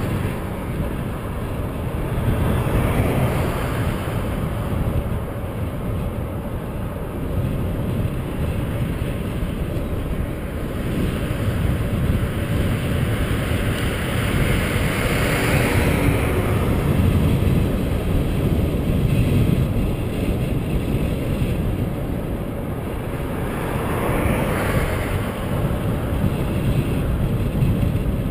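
Wind rumbling steadily on the microphone of a camera riding on a moving bicycle, with the hiss of cars passing on the highway swelling up and fading a few times.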